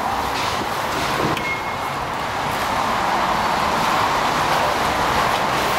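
Steady background din like road traffic, with a short high beep about a second and a half in.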